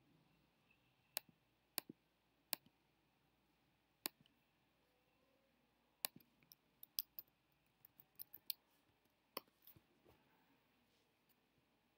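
Computer mouse clicks over near silence: a few single sharp clicks a second or so apart, then a quick run of clicks about halfway through.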